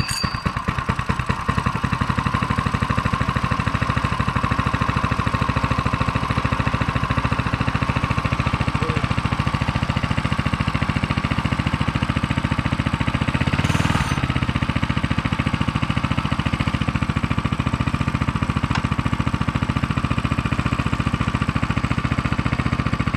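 Coleman CC100X mini bike's 99cc single-cylinder four-stroke engine running at a steady idle, freshly started. There is a brief rise in the sound about fourteen seconds in.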